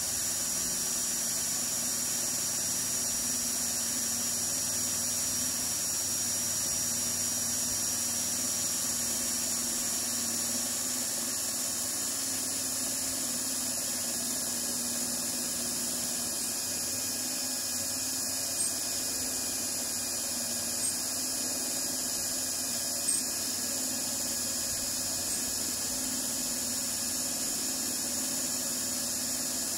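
Old Craftsman corded electric drill running steadily with a high whine, driving a worm gear winch that winds in cable to raise a cantilever boat lift. A few faint ticks come about every two seconds in the second half.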